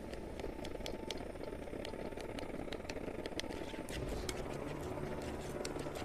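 Steel spoon stirring popcorn kernels and butter in a steel kadhai, giving irregular clinks and scrapes against the pan, over the steady low roar of the gas burner.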